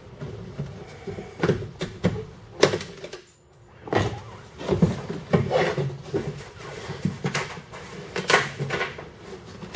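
Irregular clicks, knocks and light metallic rattles from hands and a tool working inside the bare inner sheet-metal shell of a 1998 Chevrolet pickup's door, prying at a retaining clip, with a short pause about three and a half seconds in.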